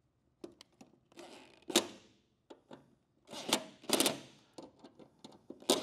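Metal clicks and a few short rasping strokes of hand tools working the bolts of a 2nd-gen Camaro door hinge as it is set in place.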